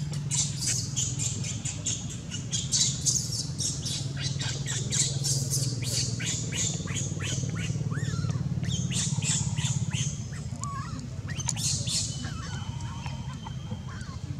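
Baby macaque giving rapid trains of short, high-pitched squeaks and squeals, several a second, which thin out about ten seconds in and flare again briefly near twelve seconds. A steady low hum runs underneath.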